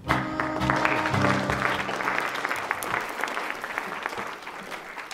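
An audience applauding, the clapping thinning out toward the end. For the first two seconds or so the closing held chord of the intro music sounds over it.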